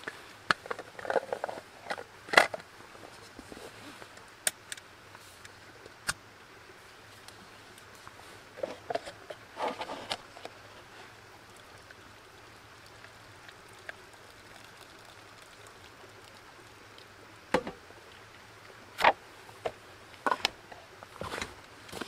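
Scattered clicks, knocks and short rustles of a thermos and a cup-noodle container being handled on a metal camp table, a loud click a couple of seconds in and a burst of sharp ticks near the end.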